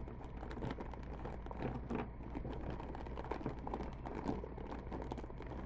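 A plastic bag rustling and small hard plastic parts being handled, a quick run of little clicks and taps over a steady low hum.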